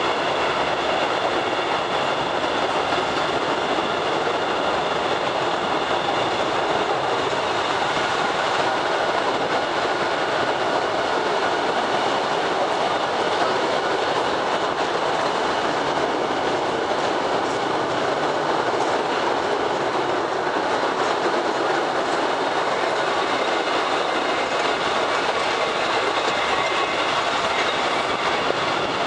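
Cave mini-train running steadily along its track: a continuous rumble and rattle of the cars' wheels on the rails, with faint high steady tones over it.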